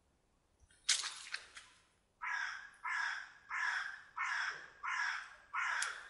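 A sharp crack about a second in, then a crow cawing six times in an even series, about one and a half caws a second.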